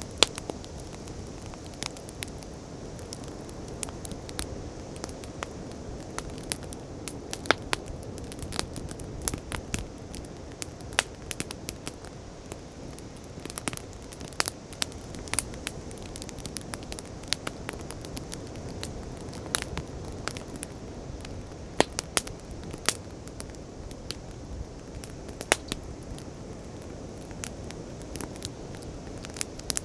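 Wood fire crackling, with frequent irregular sharp pops and snaps, over a steady low rush of ocean waves.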